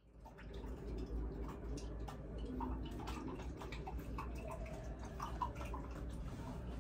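A spoon stirring in a ceramic mug, making light, irregular ticks and small clinks, over a low steady room hum.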